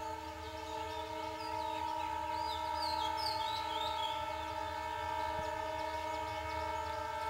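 Diesel locomotive horn held in one long, steady chord as the train approaches, over a low rumble. Birds chirp briefly between about one and a half and four seconds in.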